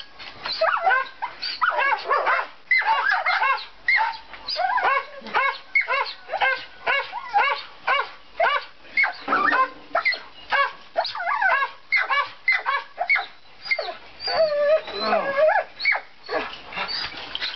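Several dogs yipping and barking excitedly in quick, overlapping high-pitched calls, several a second, with a longer whining call about three quarters of the way through.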